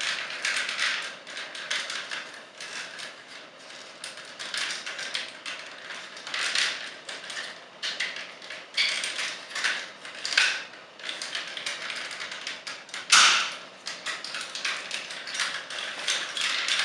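Plastic parts of a Sixshot Transformers figure clicking, scraping and snapping into place as it is transformed by hand, with one louder snap about two-thirds of the way through.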